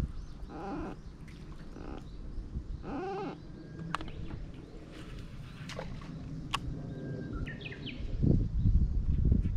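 Two short wavering animal calls, then a few sharp high bird chirps, over a low steady rumble.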